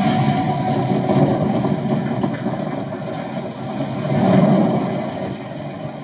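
Vehicle engine and road noise: a steady rumble that swells about four seconds in and then eases off.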